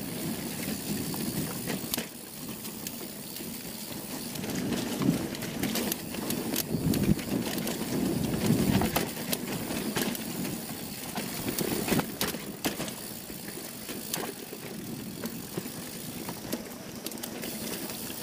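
Polygon Siskiu T7 full-suspension mountain bike descending a rough dirt trail: tyres rolling over soil and roots, with frequent sharp knocks and rattles from the bike over bumps. There are louder rumbling surges partway through.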